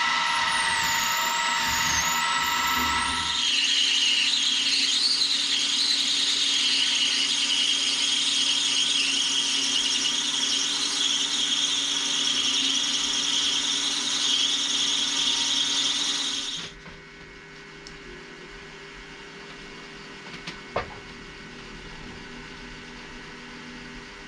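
Drill bit being run into the metal cylinder block of a model oscillating steam engine, opening up the cylinder bore in stages. A motor whine that shifts in pitch for the first few seconds gives way to a steady, wavering high squeal of the bit cutting. This stops suddenly about two-thirds of the way through, leaving a quieter hum and one short click near the end.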